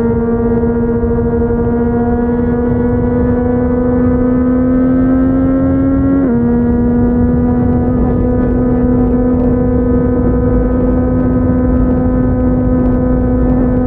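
Yamaha MT-09's inline three-cylinder engine through a Yoshimura R55 slip-on exhaust, pulling under load with its pitch slowly climbing. About six seconds in, the pitch drops sharply as the bike shifts up a gear, then holds nearly steady with a slight rise. A low rush of wind and road noise runs underneath.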